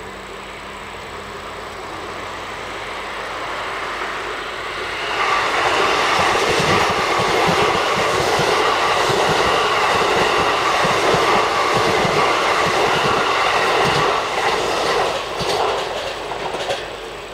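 JR East E531 series ten-car electric train on the Joban Line running past: its sound builds as it approaches, then about nine seconds of loud running with the rhythmic clickety-clack of wheels over rail joints, dying away as the last cars go by near the end.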